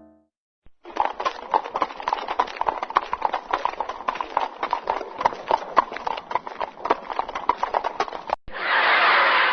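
Horse's hooves clip-clopping on a hard surface in a steady, quick run of hoofbeats, starting about a second in. Near the end it cuts off and a loud wash of audience laughter begins.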